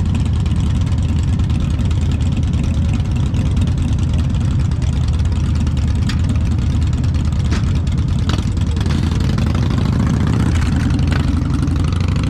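Harley-Davidson V-twin motorcycle engine running steadily with a deep, even exhaust note.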